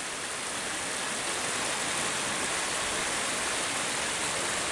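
Waterfall water rushing over rock, a steady even hiss.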